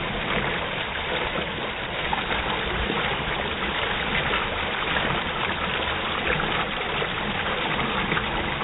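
Steady rushing and trickling of swimming-pool water lapping into the overflow gutter at the pool edge.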